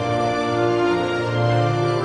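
Background music of slow, sustained notes, the chord changing at the very start.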